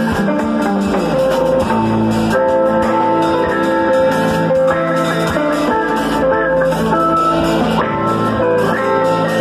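Electric guitar and drum kit playing loud instrumental rock together: sustained, changing guitar notes over steady drum and cymbal hits.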